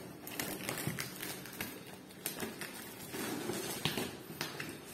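Scissors cutting and scraping through packing tape on a cardboard box, a string of irregular small clicks and scratches.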